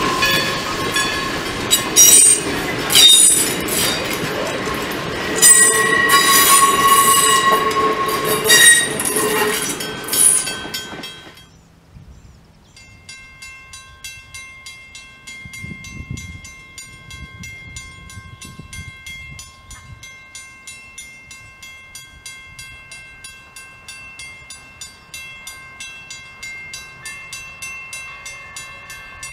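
Passenger coaches rolling on a curve with the steel wheel flanges squealing in shifting high tones for about the first eleven seconds. After a sudden cut, a railroad grade-crossing bell rings steadily at about two strikes a second.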